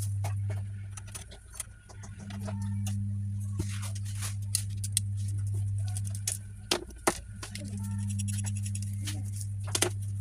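Scattered sharp clicks and light knocks of small hard parts being handled, over a steady low hum that fades twice and comes back.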